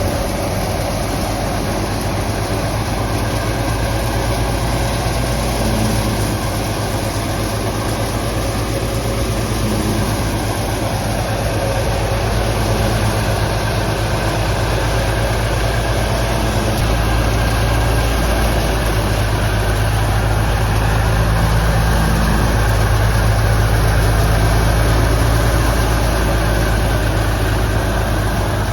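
Wheat thresher running steadily: a constant low engine drone under dense, even machine noise.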